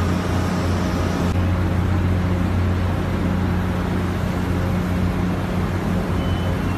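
Steady low drone of a harbour crane's machinery running as it hoists a shipping container, with a faint high tone near the end.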